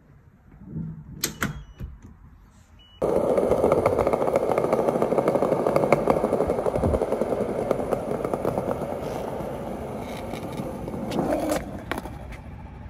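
A few light knocks and clicks, then about three seconds in a skateboard's wheels start rolling over granite paving blocks: a loud, steady rumble with a fast rattle from the joints between the stones, easing off and dropping away near the end.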